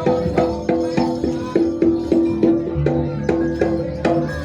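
Jaranan gamelan music: pitched gamelan percussion struck in a quick, steady rhythm, about three strokes a second, each note ringing on, with drum beneath.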